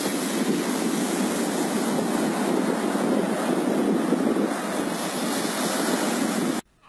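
Steady rush of wind on the microphone mixed with surf breaking on the beach. It cuts off suddenly near the end.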